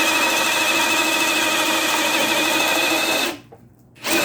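Ryobi One+ HP brushless hammer drill running steadily in low gear (speed 1) with a steady whine, boring a 1-1/4-inch spade bit, the largest bit tested, through wood. It stops about three seconds in and starts again just before the end.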